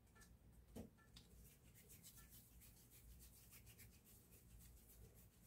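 Near silence, with faint rubbing of dough-covered hands as they roll a ball of baati dough and rub the dough off the palms. A single soft thump comes about a second in.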